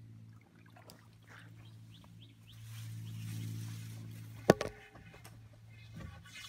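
Landing net being picked up and swung round, with one sharp knock about four and a half seconds in and a couple of smaller knocks after it, over a steady low hum and faint birdsong.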